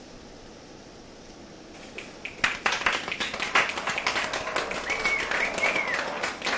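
A steady hiss that slowly swells, giving way about two seconds in to a dense, irregular clatter of sharp taps and clicks that grows louder, with two short rising-and-falling whistle-like chirps near the end.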